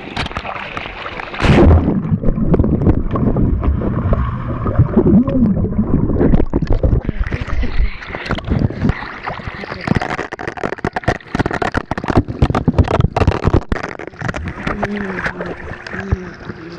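Handling noise on a hand-held camcorder's microphone: a heavy rumble for a few seconds, then a long run of quick knocks, taps and scrapes as fingers grip, cover and shake the camera.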